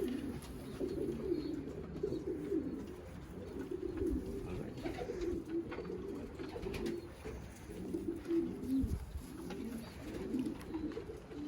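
Racing pigeons cooing continuously, several calls overlapping, with a couple of soft low thumps.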